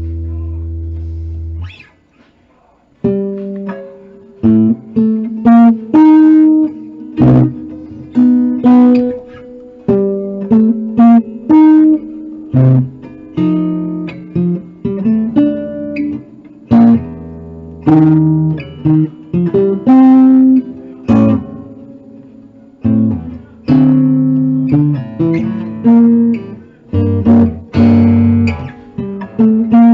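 1970 Guild Artist Award archtop guitar: a held chord rings and is cut off about two seconds in. After a short pause, chords and single notes are picked one after another, each ringing briefly and dying away.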